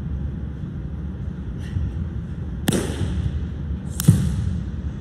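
A wushu athlete's stomps, landings and slaps during a changquan routine: two sharp impacts, one near the middle and a louder one about four seconds in, each with a short echo of the large hall. A steady low background noise runs underneath.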